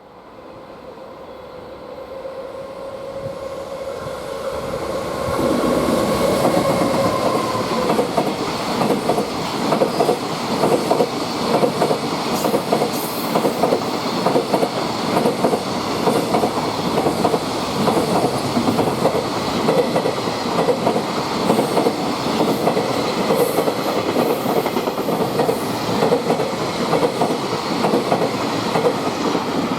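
Freight train passing: the EF210 electric locomotive approaches, growing steadily louder, and its whine drops slightly in pitch as it goes by about six seconds in. A long run of freight wagons follows, clattering evenly over the rail joints.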